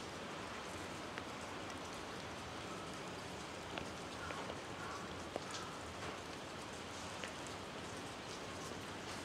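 Steady patter of light rain, with a few faint scattered clicks.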